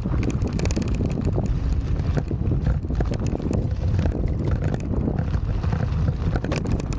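Wind buffeting the microphone while a Varla Eagle One electric scooter rides over rough dirt, with the low rumble of its knobby off-road tires and frequent small clicks and knocks.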